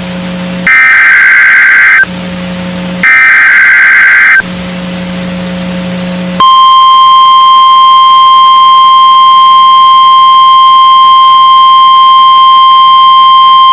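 NOAA Weather Radio Emergency Alert System tones. Two harsh, buzzing SAME header data bursts, each about a second long, are followed after a pause of about two seconds by a long, steady, single-pitched warning alarm tone. The tones signal that a new warning is about to be broadcast.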